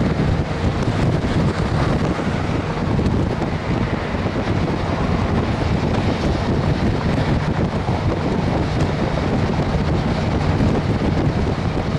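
Wind buffeting the microphone of a car pacing a train at speed, over a steady low rumble.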